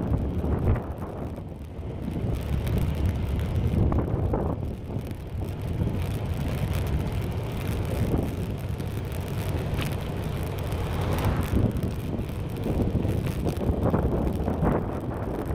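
Wind buffeting the microphone of a rider on the move, over a steady low road rumble.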